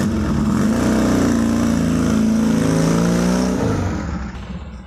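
Triumph 650cc parallel-twin chopper engine accelerating as the motorcycle pulls away. The revs climb in the first second, hold, then the sound fades over the last second as the bike rides off.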